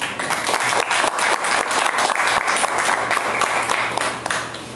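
Small audience applauding with many hand claps; it starts at once and dies away after about four seconds.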